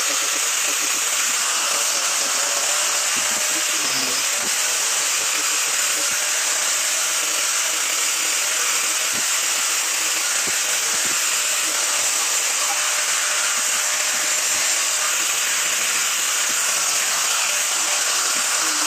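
Handheld angle grinder fitted with a sanding disc, running steadily as it sands the wooden stool's legs and seat: a constant high whir with the scratch of the disc on the wood.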